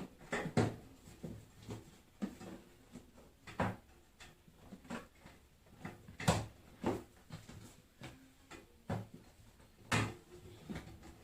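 Irregular knocks, clicks and clatter of parts and tools being handled while working on a household washing machine or dryer, roughly one sharp knock a second, the loudest about six seconds in and again near the end.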